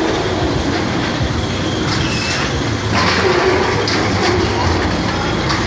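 Spinning mouse roller coaster car rolling slowly along its steel track on the station brake run, wheels rumbling and rattling, with several sharp clunks and a brief squeal about two seconds in.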